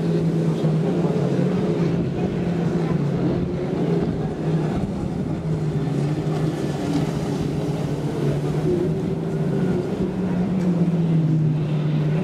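Watercraft engine droning steadily, its pitch dipping and rising slightly a few times.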